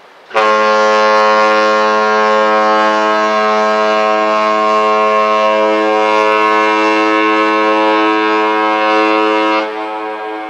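Costa neoRomantica's ship horn sounding one long, steady blast of about nine seconds, which cuts off near the end and lingers in an echo.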